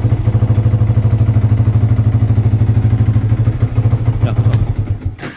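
Yamaha FZ150 single-cylinder four-stroke motorcycle engine running steadily with a fast, even beat, then switched off with the ignition key near the end, the running dying away within about a second.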